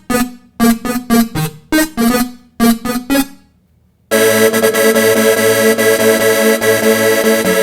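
Instrumental R&B background music: short, clipped keyboard chords in a quick rhythm for about three seconds, a brief pause, then a fuller track with sustained keyboard notes starting about four seconds in.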